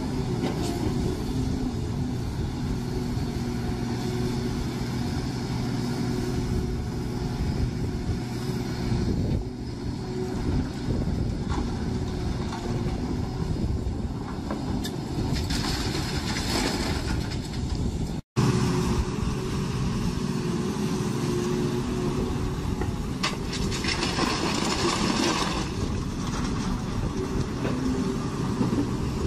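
Diesel engines of a tracked excavator and a dump truck running steadily. Twice, a rushing, splashing noise of a couple of seconds as the excavator bucket empties water and gravel into the truck bed.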